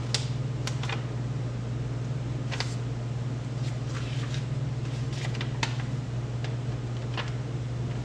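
Paper instruction sheets and cards being handled and leafed through, giving a scattering of short, crisp rustles and clicks over a steady low hum.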